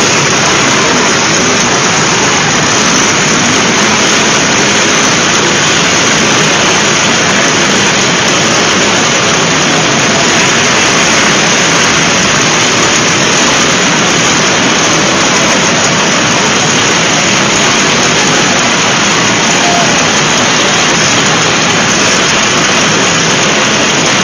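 Many two-stroke Vespa scooters idling together in a loud, steady din, with no single engine standing out.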